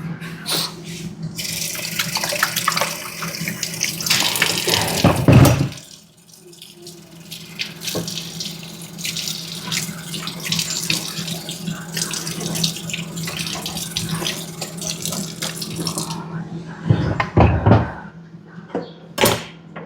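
Chopped beef steak sizzling as it fries in hot oil in a pan: a dense, crackling hiss that fades near the end, with a couple of heavy knocks along the way.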